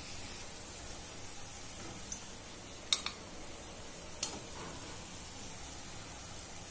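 A steel slotted spoon clicking against the frying pan as fried jalebis are lifted out of the oil: a few short sharp clicks, the loudest about three and four seconds in, over a faint steady hiss.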